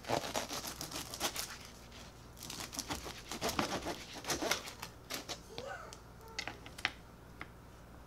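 Knife sawing through a crisp-crusted focaccia on a wooden cutting board: a rapid run of crackling clicks as the crust breaks, thinning out after about five seconds to a few sharp ticks.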